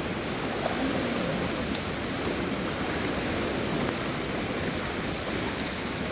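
Steady wash of splashing water in an indoor swimming pool hall as swimmers swim lengths in the lanes.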